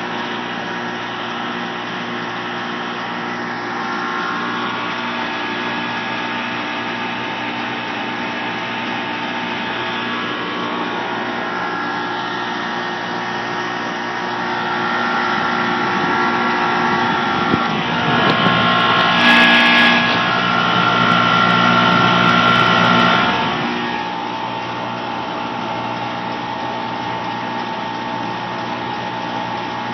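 Air-conditioning compressor running with a steady hum and whir, growing louder for several seconds in the middle and then settling back. It sounds normal, yet the system is not cooling.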